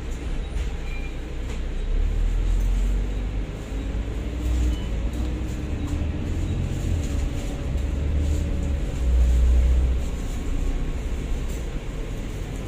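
Volvo B9TL double-decker bus under way, heard from the upper deck: the Volvo D9A diesel engine and drivetrain give a steady low rumble, with a rising whine a couple of seconds in as the bus picks up speed.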